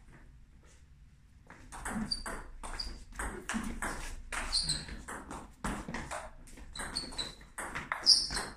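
Table tennis rally: the plastic ball clicks off the bats and the table in quick alternation, starting about a second and a half in.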